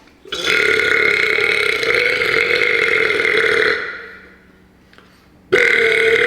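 A man burping: one long, steady burp of about three and a half seconds that fades away, then a second burp starting abruptly near the end.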